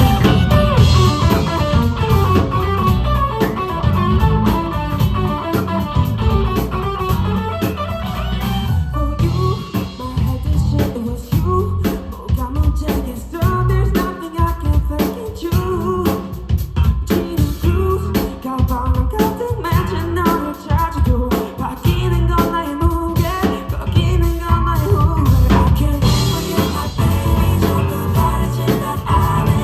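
Live band playing a pop song, with drum kit and guitar and a singer's voice over them.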